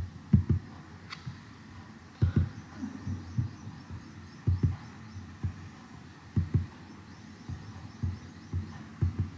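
A string of soft, deep thumps at uneven intervals, a dozen or more, several coming in quick pairs, over a faint steady hiss.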